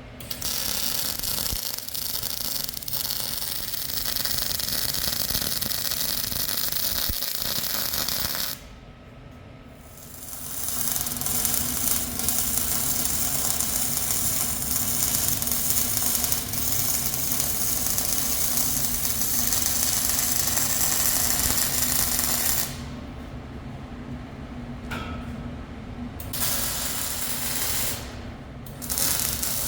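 MIG welding arc crackling and hissing in long runs while beads are laid on heavy steel hollow section, stopping between beads: once about nine seconds in and again shortly before the end, with a quieter spell in between.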